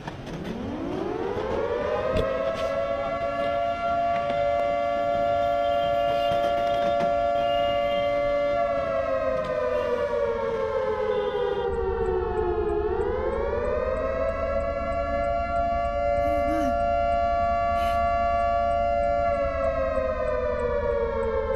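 Civil-defense-style warning siren wailing. It rises over about two seconds and holds a steady pitch. Around the middle it falls slowly, then rises again and holds, and near the end it begins to fall once more.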